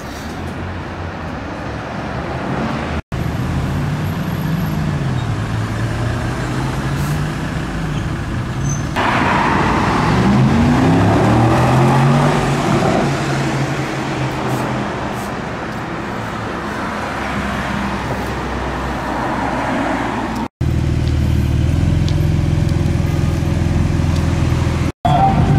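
Sports car engines in street traffic, rising and falling in pitch as the cars accelerate and drive past. The sound is broken by sudden cuts about 3, 20 and 25 seconds in; the loudest stretch is an engine climbing in pitch about 9 to 13 seconds in.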